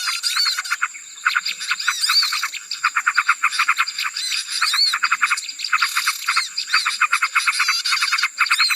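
A noisy chorus of small birds chirping and trilling in rapid bursts, many quick rising and falling notes overlapping: a lure call for small birds. A steady high-pitched whine sits beneath it.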